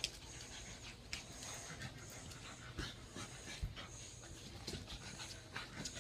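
A dog panting, with scattered light clicks and knocks from play-fighting.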